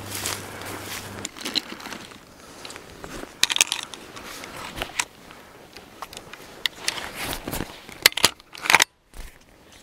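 Irregular close rustling and crackling of dry material, with scattered sharp clicks. A low steady hum stops about a second in, and the sound cuts out briefly near the end.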